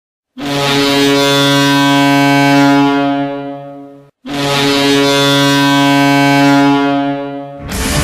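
Ice hockey goal horn, a recreation of the North Dakota Fighting Sioux horn, sounding two long blasts back to back, each tailing off at its end. Rock music starts just before the end.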